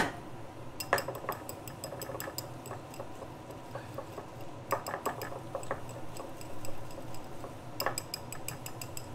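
Wire whisk stirring and clinking against a small ceramic bowl, mixing olive oil into a thick spice-rub paste to thin it out. Irregular clinks throughout, with quicker runs of ticking about a second in and near the end; a glass bottle is set down with a sharp knock right at the start.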